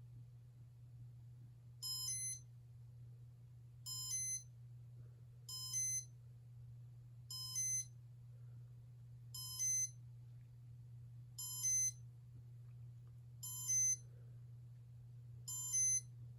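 Casablanca Comfort Touch ceiling fan control beeping in its test mode: eight short, high-pitched electronic beeps, one about every two seconds, starting about two seconds in, over a steady low hum.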